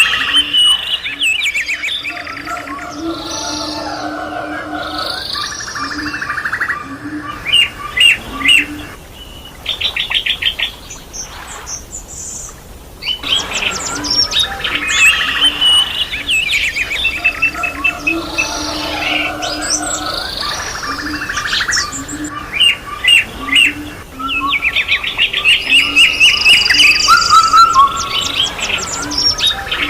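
Several birds singing and chirping together: a dense mix of quick trills, whistles and chirps at different pitches, thinning out briefly near the middle.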